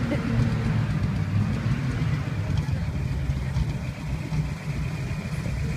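Early Chevrolet Corvette's V8 engine idling, a steady low-pitched engine sound.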